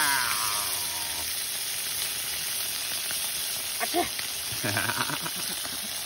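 Minestrone soup sizzling and bubbling hard in a very hot cast-iron skillet over a wood fire as it is poured in, a steady hiss.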